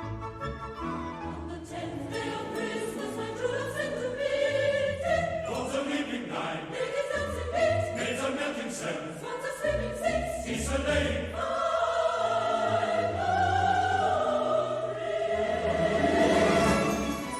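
Music: a choir singing in a classical, operatic style, holding long notes over orchestral accompaniment.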